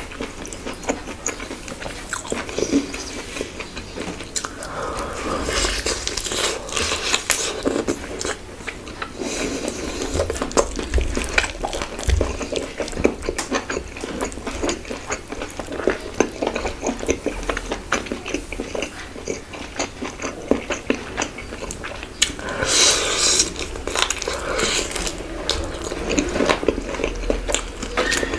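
Close-miked eating sounds: wet chewing and mouth smacks in a dense run of small clicks as khichuri and chicken curry are eaten by hand.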